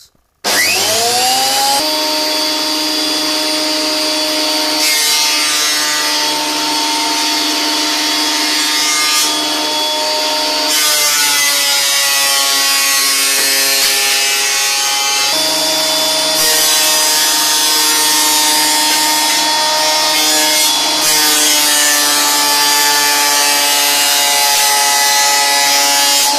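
Aldo MB1931 A 12-inch benchtop thickness planer switched on, its motor spinning up within about two seconds to a loud, steady whine. It then planes hardwood boards with its stock knives, giving a harsh, hissing cutting noise, and the whine dips slightly in pitch each time a board is fed through under load.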